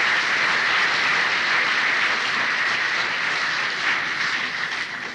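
Concert audience applauding, on an old cassette recording; the clapping dies away near the end.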